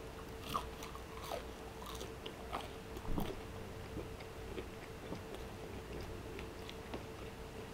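A person biting into and chewing fried pork belly (chicharrón), with scattered small crunches and crackles.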